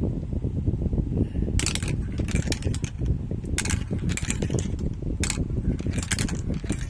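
Marbles rolling and rattling along a marble run track, a steady clatter, with sharp clicks several times as marbles strike each other or the track pieces.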